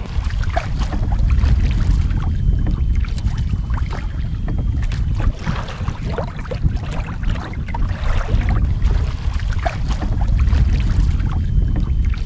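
Water splashing and lapping around a canoe as it is paddled, under a steady low rumble of wind on the microphone.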